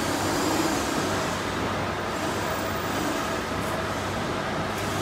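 Chain link fence machine running: steady mechanical noise from its motor and drive as it works the woven wire mesh.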